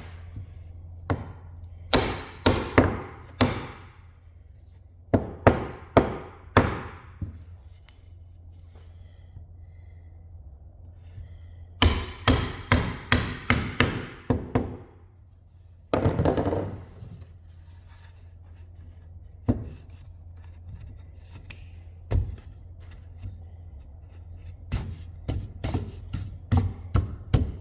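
Knocking on wooden workpieces: quick runs of three to eight sharp strikes, with pauses of a few seconds between runs, over a steady low hum.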